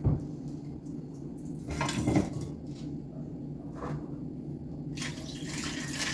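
Dishes and cutlery clattering and knocking as they are handled at a kitchen sink, with a tap turned on and water starting to run about five seconds in.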